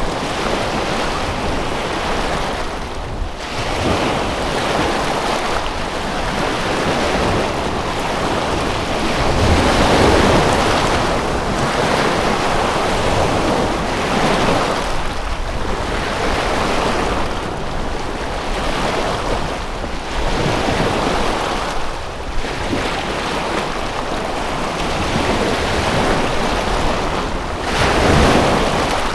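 Waves washing in, a rushing noise without any pitch that swells and fades every two seconds or so.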